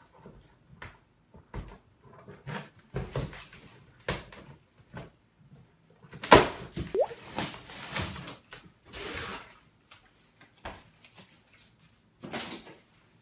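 Plastic packing strap being worked off a large cardboard box by hand: scattered cardboard scrapes, rustles and clicks, with a loud sharp crack about six seconds in and a longer scrape a few seconds later as the box is moved.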